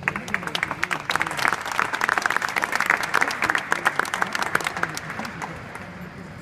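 Crowd applauding: many hands clapping that start all at once, build, then thin out and die away after about five seconds, with faint voices underneath.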